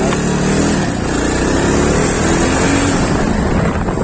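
Motorcycle engine pulling away and accelerating, its pitch climbing, dropping and climbing again a few times over a steady low rumble and road noise.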